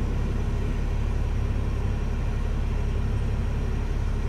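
Steady low rumble of a Peterbilt semi truck's diesel engine idling, heard from inside the cab.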